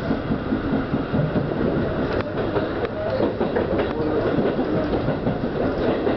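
Seibu 101 series electric train running at speed, heard from inside the front car: a steady rumble of wheels and motors, with sharp clicks as the wheels pass over rail joints and points.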